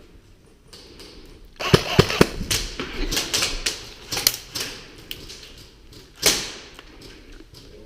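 Airsoft gunfire: a rapid rattle of sharp clicks and cracks that begins about a second and a half in and runs for a few seconds, then one more single sharp crack near the end.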